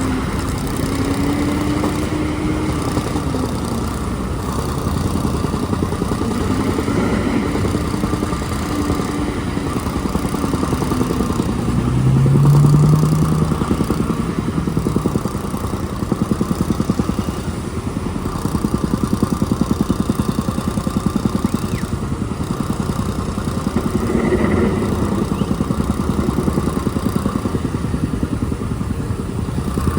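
Diesel engine of a Cat backhoe loader running under working load, its pitch rising and falling as it revs up and down, with a louder surge about twelve seconds in.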